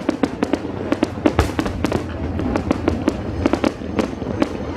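Aerial fireworks display bursting in a rapid, irregular string of bangs and crackles, several a second.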